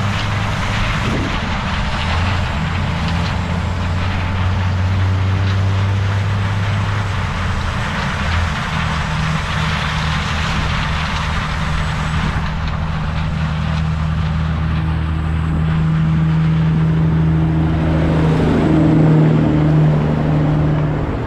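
Heavy farm diesel machinery running steadily, with a constant mechanical rush. The engine note steps up in pitch partway through and briefly rises and falls near the end.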